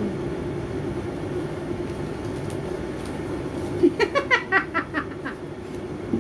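A woman laughing, a quick run of 'ha' notes about four seconds in, over a steady low hum.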